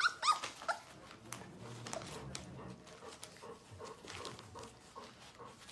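Puppy whining and yelping in a quick run of high squeals in the first second, then newspaper crinkling and crackling as the puppies chew and paw at it, with a few softer whimpers.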